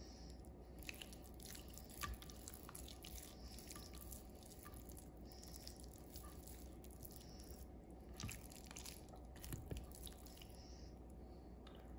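Faint wet squishing of a hand rubbing soft butter into raw steak, with scattered light clicks, over a low steady hum.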